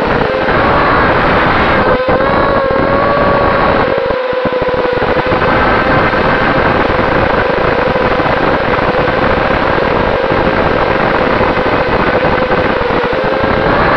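ImmersionRC Vortex 285 racing quadcopter's brushless motors and propellers whining steadily in fast forward flight on a 4S battery, the pitch wavering slightly with throttle. Heavy wind rumble on the onboard camera's microphone runs underneath.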